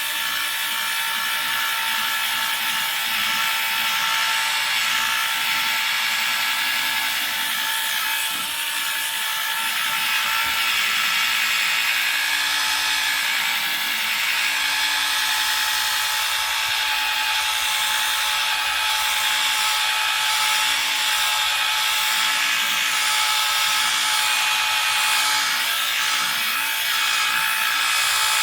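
Power polisher running steadily with a constant whine, its pad working wet polish over the windscreen glass to remove scratches.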